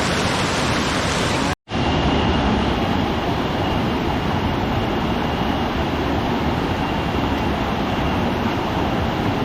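Steady rush of fast-flowing river water, broken by a moment of dead silence about one and a half seconds in.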